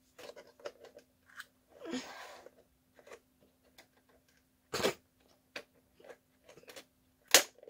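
Plastic RC truck chassis being handled on a tabletop: scattered small clicks and knocks, a short rustle about 2 seconds in, and two loud sharp knocks, one about 5 seconds in and one near the end, over a faint steady hum.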